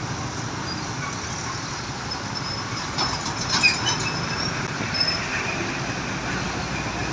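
Roadside traffic noise: a heavy vehicle's engine and tyres rumbling past as a steady wash of sound, with a few sharp clicks about three to four seconds in.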